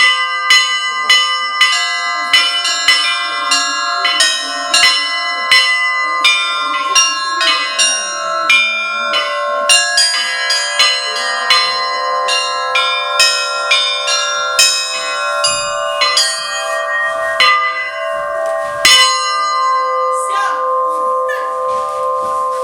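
Russian Orthodox church bells rung by hand: several bells at different pitches struck about twice a second in a repeating peal over the sustained hum of the larger bells. The strikes stop about 19 seconds in and the bells ring on, fading.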